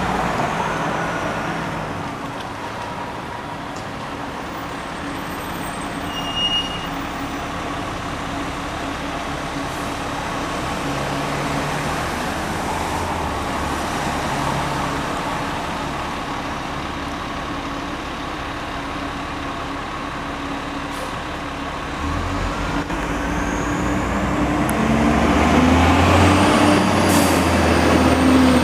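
Steady street traffic noise with vehicle engines running. About two-thirds of the way through, a heavy truck engine comes in and grows steadily louder as a 2001 Seagrave pumper fire engine approaches.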